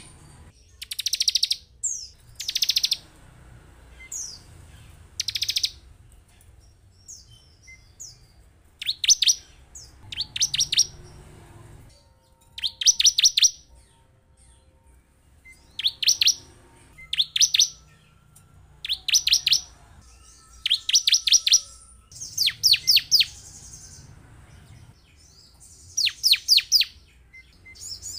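Bar-winged prinia (ciblek) calling: short bursts of rapid, high, sharp notes, repeated every second or two.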